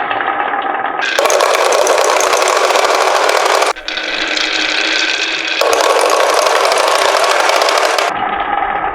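Marbles rolling and clattering down a marble run track as a dense, continuous rattle, its sound changing abruptly several times.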